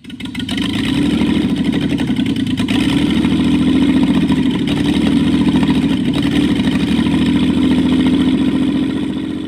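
Jaguar XK twin-cam straight-six engine running steadily on a test stand, out of the car.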